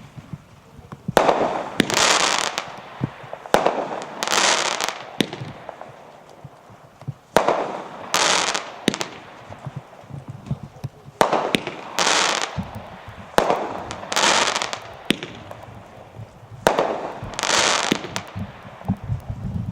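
Mean Machine firework shooting aerial shots, about six in all and a few seconds apart. Each shot is a sharp launch thump followed under a second later by a loud crackling burst lasting about a second.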